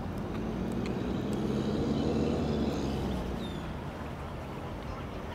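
An engine passing by at low revs, growing louder to a peak about two seconds in and then fading away.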